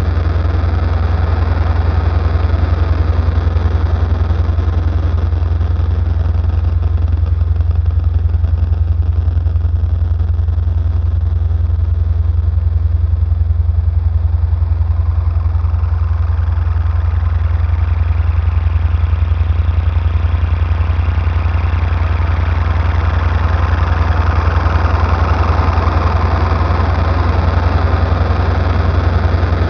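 Electronic sound-design drone: a loud, steady low hum with a noisy hiss above it. The hiss dims about a third of the way in and swells back up over the second half.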